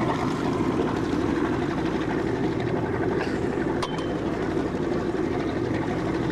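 A boat's engine running steadily, a low even hum, with a brief click about four seconds in.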